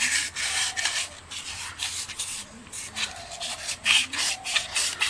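Fine sandpaper scraped back and forth over a scooter starter motor's armature commutator, about three or four quick strokes a second with a brief pause midway. The commutator is being dressed because it is worn down from failed carbon brushes.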